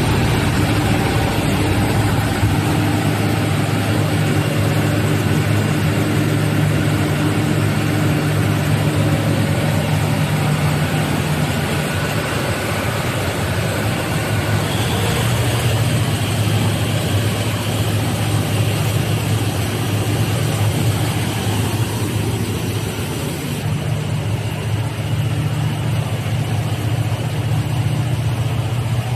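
Large Cummins diesel generator set (1500 kVA, 13.8 kV medium-voltage) running steadily under commissioning test, a loud, even low engine drone. A faint high whine joins about halfway through.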